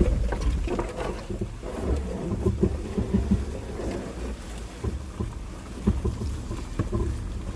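Jeep Wrangler Rubicon's 3.6-litre V6 running at low revs as it crawls over a rutted trail, with irregular knocks and rattles from the suspension and body and some wind on the microphone.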